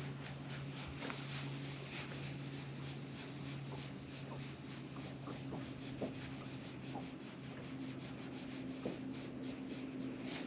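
Steady low hum of a bass boat's electric trolling motor under a faint, rough rubbing noise, with a few soft ticks.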